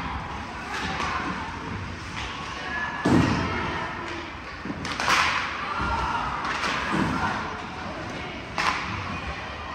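Ice hockey play on an indoor rink: skates scraping the ice and sharp knocks of sticks and puck against the boards. The loudest thud comes about three seconds in, with two more sharp knocks later.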